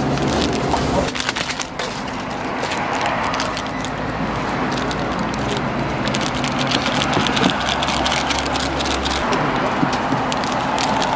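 Plastic instant-ramen seasoning sachets crinkling and being torn open and shaken out, a dense run of small crackles that grows busier in the second half, over a steady low hum.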